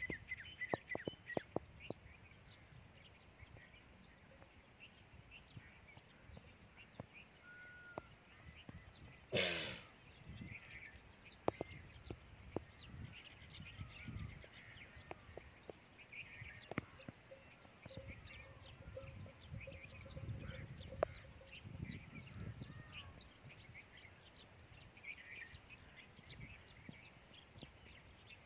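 Camel bells clinking now and then, with small birds chirping throughout. A single brief rushing burst, the loudest sound, comes about nine seconds in.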